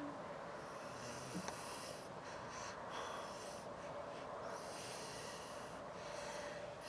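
A man breathing noisily through the nose in short irregular bursts, with snort-like exhalations, over a faint steady hum.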